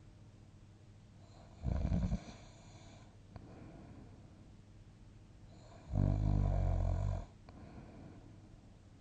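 Snoring in sleep: a short snore about two seconds in and a longer, louder snore lasting over a second about six seconds in, with quiet breathing between them.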